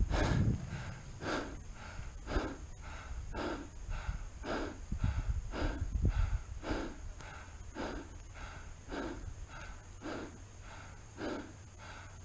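A person breathing hard and fast right at a body-worn camera's microphone: an even run of in and out breaths, about one full breath a second. Low rumbles on the microphone in the first second and again around five to six seconds in.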